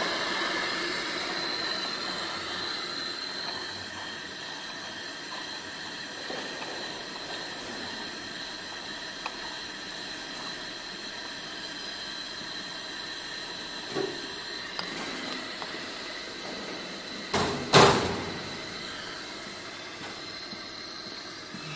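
Steady hum of a running tube filling and sealing machine, with a few light clicks as the tube holders are handled. About three-quarters of the way through come two loud knocks in quick succession.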